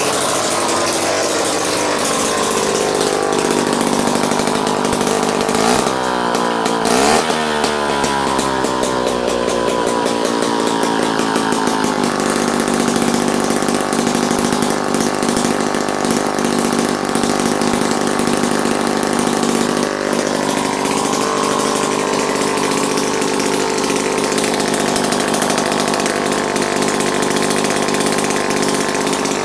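Small air-cooled single-cylinder bike engine running steadily on the bench at a speed held by its flyweight governor, warming up toward operating temperature. Its sound wavers up and down for several seconds near the start, then settles to an even running note.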